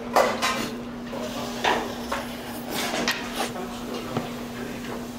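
Spoon clinking and scraping against bowls at the table, several sharp clinks spread through, over a steady low hum.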